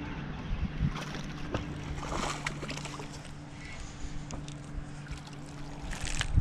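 A hooked fish splashing at the surface near the end, over a steady low hum and scattered clicks and handling noise from the spinning rod and reel.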